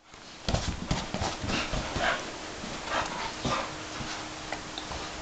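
Two dogs, a Puggle and a Dachshund–German shepherd mix, playing with a volleyball on carpet: irregular thumps and scuffles of paws and the ball, starting about half a second in.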